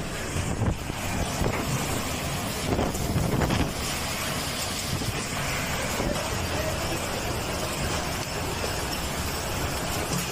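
Heavy storm rain and gusting wind, a steady rushing noise, more uneven in the first few seconds and then even.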